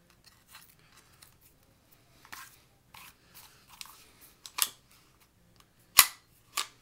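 Styrofoam packing scratching and rubbing as it is pulled off a Colt 1911 airsoft pistol. It is followed in the second half by a few sharp metallic clacks from the pistol's slide being worked, loudest about six seconds in.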